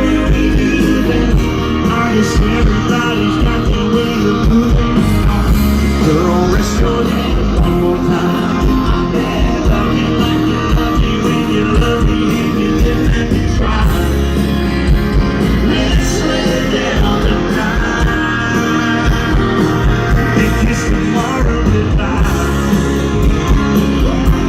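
Rock music with a singing voice and guitar, playing steadily throughout.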